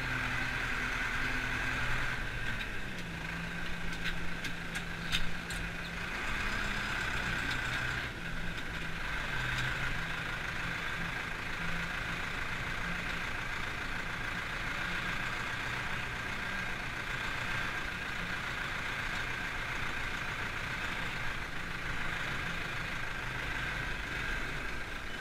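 Zetor Forterra 115 tractor's four-cylinder diesel engine running, heard from inside the cab, with a steady high whine over it. The engine note changes pitch a few times, and a few sharp clicks sound about four to five seconds in.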